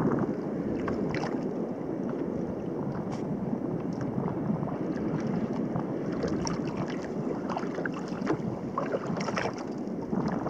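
Small waves lapping against the hull of a sit-on-top kayak: a steady wash with scattered small splashes and ticks, and light wind on the microphone.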